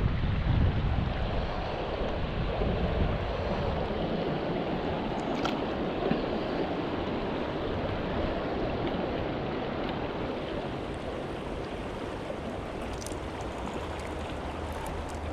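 Creek water rushing steadily over a rocky riffle, with wind buffeting the microphone at the start.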